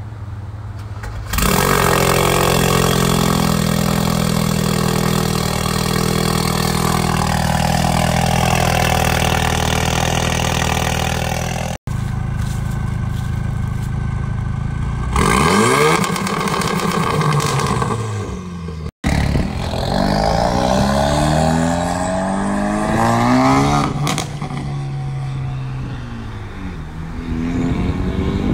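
Ford Focus RS's turbocharged 2.3-litre four-cylinder through a straight-piped ETS exhaust with no cats, resonators or mufflers. It jumps to a loud, steady fast idle about a second in, is revved up and down a few times after a brief cut, and then a car is heard accelerating and going past, rising and falling in pitch.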